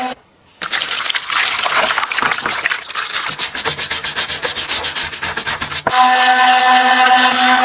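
Abrasive rubbing noise that turns into fast, regular strokes in its second half and stops suddenly about six seconds in; a small motor's steady hum takes over near the end.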